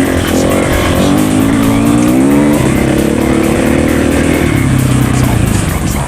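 Dirt bike engine revving under load. Its pitch climbs from about a second in, drops at around two and a half seconds, and settles lower toward the end.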